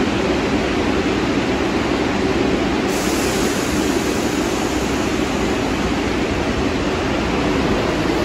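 New York City Subway train running in the station: a loud, steady rushing noise with no breaks.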